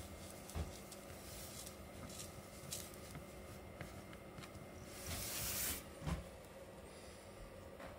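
Light knocks and a brief rustle from a plush fish cat toy being handled over a wooden floor, with one knock under a second in and the loudest about six seconds in, just after a short rustle. Otherwise faint room tone.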